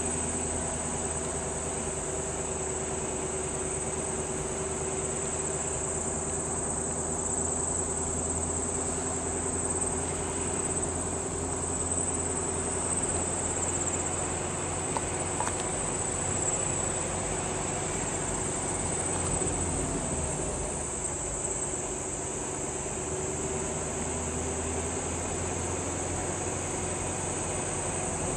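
A steady chorus of insects trilling, a continuous high-pitched shrill, over a low steady hum.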